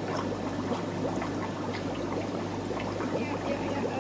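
Aquarium filtration and air pumps running: a steady trickle and splash of water over a constant low electrical hum.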